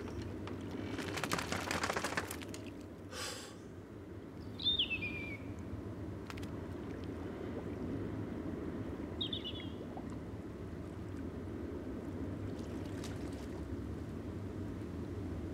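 Steady low wash of wind and sea around a rowboat, with a short rushing noise about a second in. Two brief high seabird calls, each falling in pitch, come about 5 and 9 seconds in.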